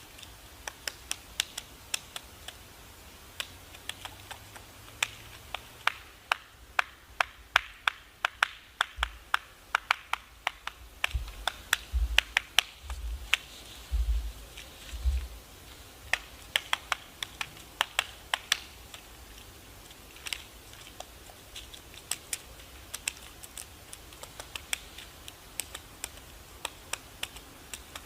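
Irregular sharp taps, often several a second and crowding together in quick runs in the middle, with a few dull low thumps among them about halfway through.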